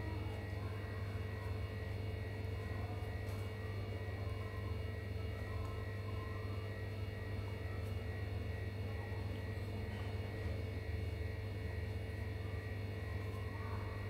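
Steady low electrical hum with a few faint steady higher tones over it, unchanging throughout.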